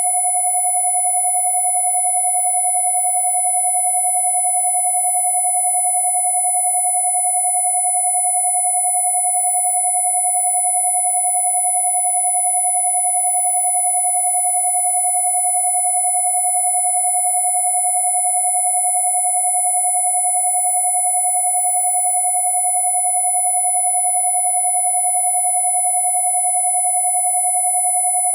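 Two steady electronic sine tones held together without change: a mid-pitched 727 Hz tone and a very high 10,000 Hz tone.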